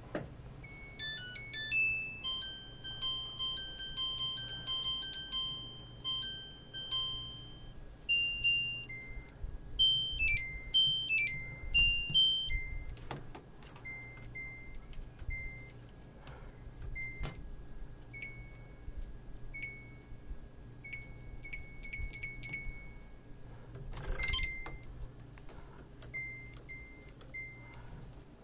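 Washing machine control panel playing a short electronic tune of high beeps as it powers on, then more melodic beeps and a series of separate short beeps as buttons are pressed. A brief knock comes near the end.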